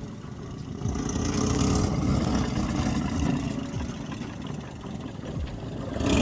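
GAZ-69's four-cylinder side-valve engine running as the vehicle drives, being run in after a rebuild. The sound swells about a second in and eases off near the end.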